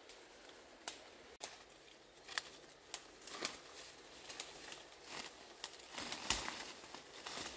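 Footsteps crunching through dry bamboo leaf litter and brushing through undergrowth, with irregular sharp crackles that come thicker in the second half.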